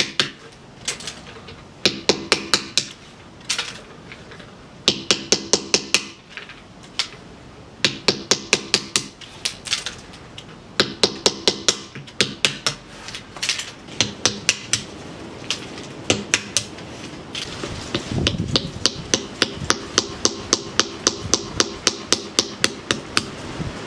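Hammer tapping black walnuts on a small steel bench anvil in quick bursts of light strikes, five to eight taps at a time, each burst ringing the anvil as it cracks the hard shells. The taps come in more even, continuous runs in the second half.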